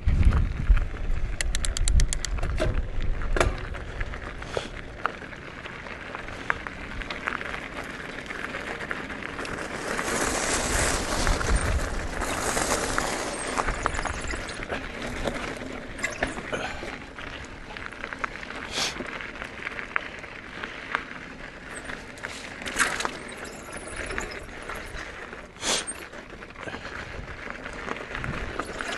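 Mountain bike ridden along a dirt trail: steady tyre noise over dirt and gravel, with scattered rattles and clicks from the bike. Wind buffets the microphone at the start.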